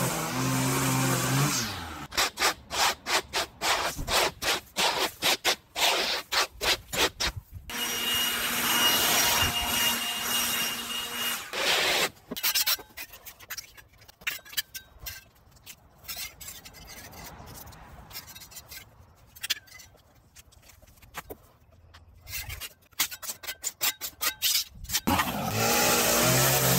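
Metal hand scraper scraping grass and soil off a concrete footpath edge, in quick repeated strokes and later in slower, quieter ones. A petrol string trimmer dies away at the start and starts running again near the end.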